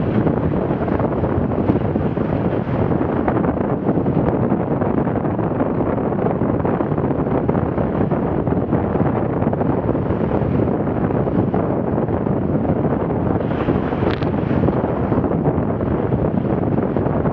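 Wind buffeting the microphone of a camera on a sailboat moving fast under sail: a steady, loud rush with no letup, mixed with water rushing along the hull.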